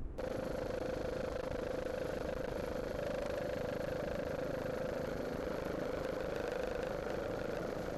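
Racing powerboat engines running at speed: a steady high-pitched drone that starts abruptly and dips slightly in pitch near the end.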